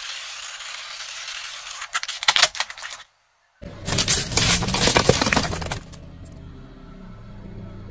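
Car tyre rolling onto a stacked heap of kitchen knives with plastic handles: the steel blades clink and clatter against each other and the pavement. This starts after a short gap about halfway through. Before it, a few sharp cracks come about two seconds in.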